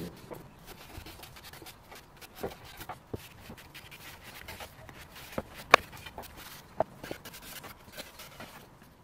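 Cloth rag rubbing oil into the wood of a birch box, in gloved hands, with light wiping and scattered small knocks and clicks as the box and hands move; the sharpest click comes a little past the middle.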